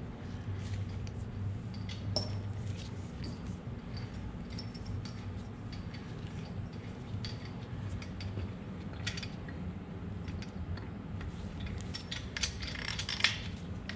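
Light metallic clinks and clicks of main bearing caps and bearing shells being handled and set onto the crankshaft of a Ford 289 V8 block. The clinks are scattered and come thicker near the end, over a steady low hum.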